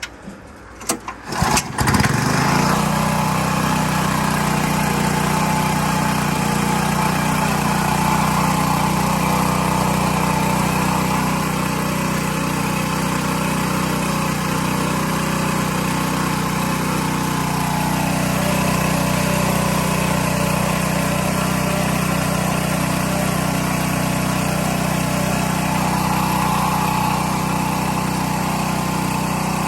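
Small gasoline engine of a 2.5 GPM pressure washer starting: a few short bursts in the first two seconds, then it catches and runs steadily.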